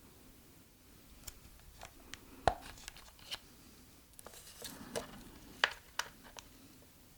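A series of sharp clicks and knocks from handling a Krytac Kriss Vector airsoft replica at its battery compartment. The loudest knocks come about two and a half and five and a half seconds in.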